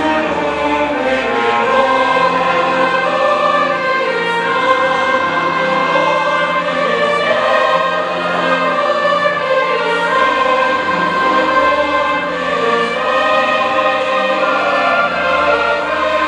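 Large choir singing with an orchestra accompanying, in long sustained chords.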